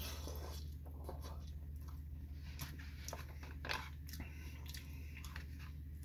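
Close-up mouth sounds of a man chewing a forkful of cheesy poutine: irregular wet smacks and clicks, loudest about a third and two thirds of the way in, over a steady low hum.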